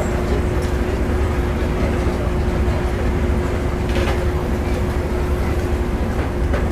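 Small passenger ferry's engine idling at the pier: a steady low rumble with a constant hum over it. A few faint knocks about four seconds in.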